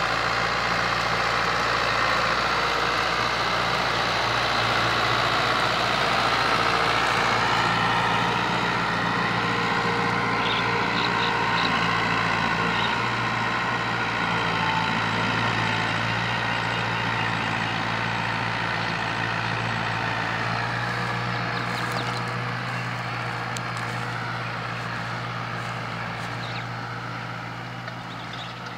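New Holland Fiat 640 tractor's four-cylinder diesel engine running steadily under load while it pulls a disc harrow through the soil, fading over the last several seconds as the tractor moves away.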